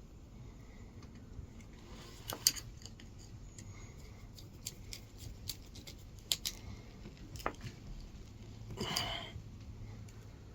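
Scattered small clicks and snips of hand tools working on thin electrical wire for a 12 V downlighter, the sharpest about two and a half seconds in. A short rustling scrape comes near the end.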